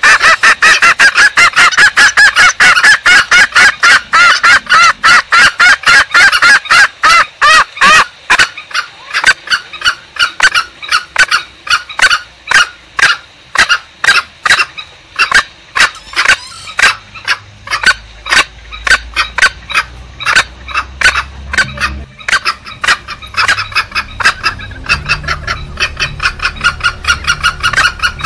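Green junglefowl calls used as a hunting lure: a rapid run of short, sharp calls, about four a second, densest and loudest in the first third.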